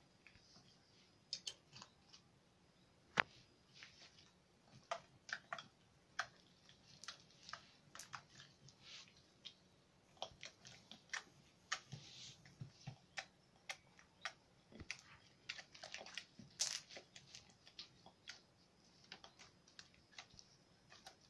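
Homemade glue-and-borax slime being kneaded and stretched by hand, giving faint, irregular sticky clicks and small pops.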